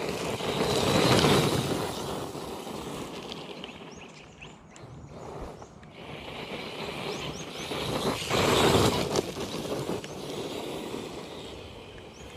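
ZD Racing DBX-10 brushless RC buggy driving past twice. Its noise swells up and fades about a second in, then again around eight seconds in.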